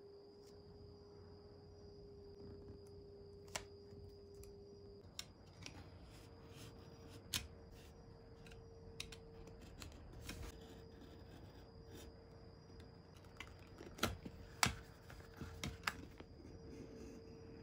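Utility knife cutting 2 mm vegetable-tanned leather on a cutting mat, partly along a metal ruler: faint scraping with scattered sharp clicks and taps, the loudest few coming about three-quarters of the way through.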